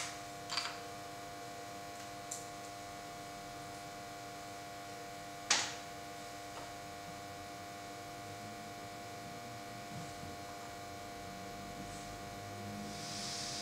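Steady electrical hum with a few light clicks and one sharp click about five seconds in. Near the end a soft gas hiss starts as the camping stove's valve is opened before lighting.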